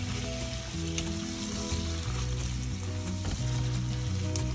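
Diced onion, garlic, ginger and whole spices sizzling as they sauté in melted butter in a pot, stirred now and then with a silicone spatula. Soft background music with slow held notes plays underneath.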